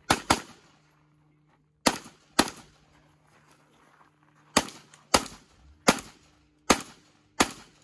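Handgun shots fired rapidly, nine in all: two in quick succession, two more about two seconds in, a pause of about two seconds, then five at a steady pace a little under a second apart, each a sharp crack with a short ringing tail.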